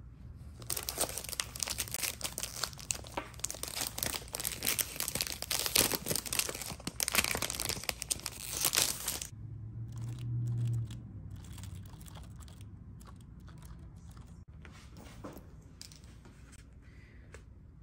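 Clear plastic packaging of a sticky-note pad crinkling and crackling as it is handled and pulled open, for about eight seconds. After that come fainter scattered taps and rustles of paper and plastic.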